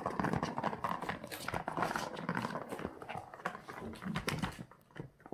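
Plastic ball rolling fast around the plastic track of a cat's ball-track toy, a continuous rattling rumble that fades out about four and a half seconds in.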